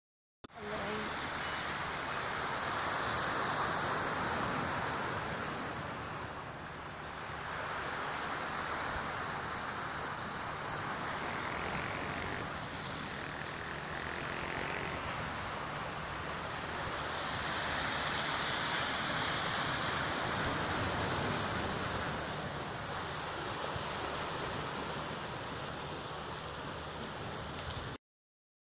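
Sea waves washing in, a steady rush of surf that swells and eases.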